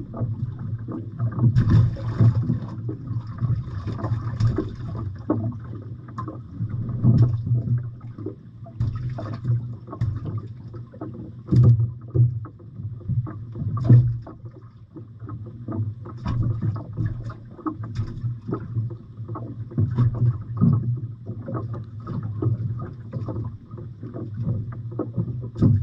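Small boat on the sea: a steady low drone with many short knocks and splashes throughout.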